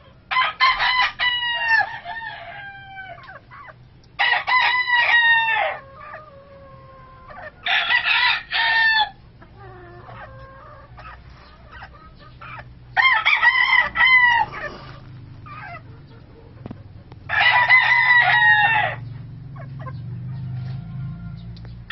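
Sweater gamefowl rooster crowing five times, about every four seconds, each crow about a second and a half long.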